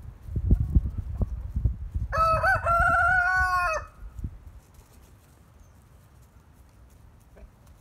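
Rhode Island Red rooster crowing once, a single call of about a second and a half, starting about two seconds in. Before it, a run of loud low thumps.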